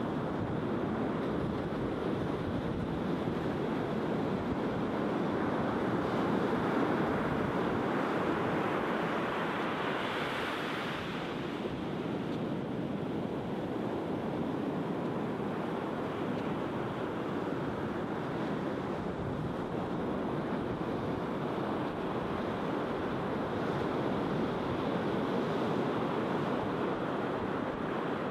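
Sea surf breaking and washing up a sandy beach: a steady rush of waves that swells to a louder hiss about ten seconds in.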